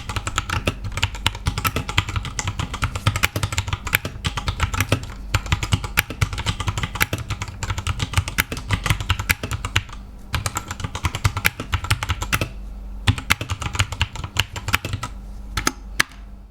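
Typing on a Digital Alliance Meca Air S mechanical keyboard with Outemu Brown tactile switches: a fast, continuous run of keystroke clacks, with two brief pauses past the middle.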